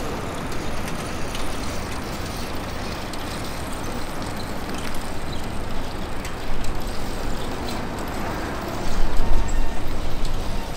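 Outdoor street ambience: a steady low rumble that swells louder briefly about six and a half seconds in and again around nine seconds.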